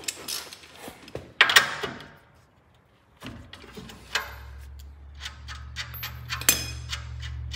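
Metal clicks and scrapes of a wrench working the 18 mm top nut of a front sway bar end link. There is a louder clatter about a second and a half in. A low steady hum comes in about halfway, under a run of sharp ticks.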